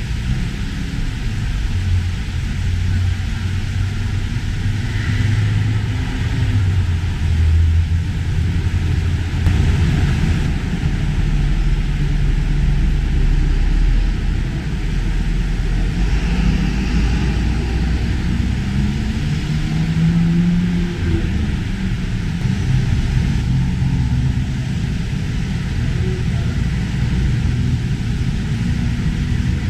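Loud, steady low rumble of road traffic, with engine notes drifting up and down in pitch.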